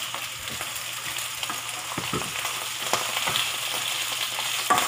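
Raw chicken pieces sizzling in hot oil with ginger in a wok, freshly added and being sautéed. A spatula stirs them, knocking against the pan a few times.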